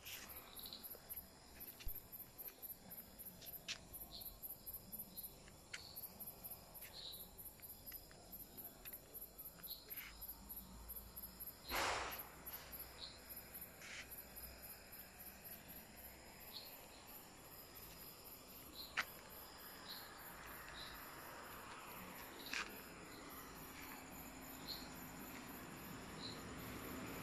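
Crickets chirping at night: a faint, high-pitched rhythmic chirp pulsing a couple of times a second, with a few sharp clicks scattered through it. Near the end a passing vehicle's noise builds up.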